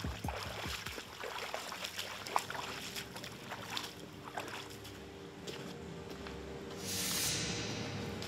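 Rubber boots wading through a shallow, rocky stream: irregular splashing and sloshing of water with each step. A brief swell of rushing noise comes near the end.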